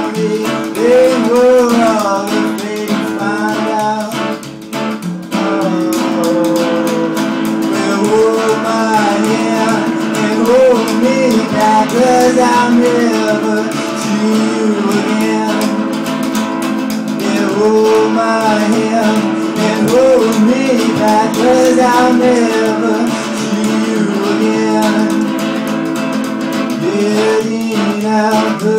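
Live acoustic duo playing: upright double bass and acoustic guitar, with a melody line above them that bends in pitch.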